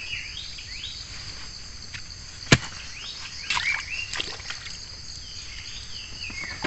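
Steady high-pitched insect chorus, with a single sharp snap about two and a half seconds in and a few short falling chirps.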